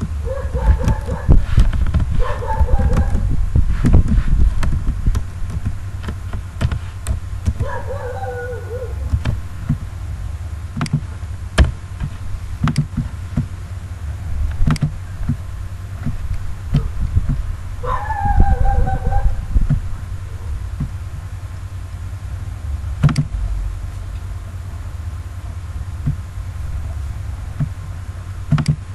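Scattered clicks of a computer mouse and keyboard over a steady low hum. Short pitched calls with a bending tone come in near the start, about eight seconds in and about eighteen seconds in.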